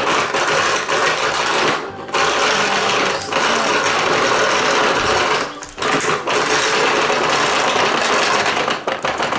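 Plastic toy nugget maker being worked by hand, its crank mechanism making a loud, continuous plastic rattling grind, broken by short pauses about two seconds in and again in the middle.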